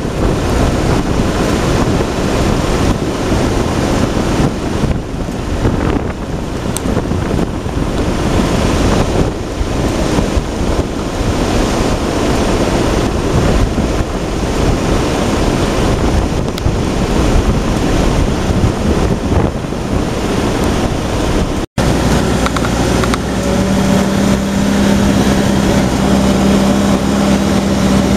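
Wind and surf rushing over the microphone for about twenty seconds. Then, after a brief break, the M151A2 military jeep's four-cylinder engine runs with a steady hum as it drives along the sand beach.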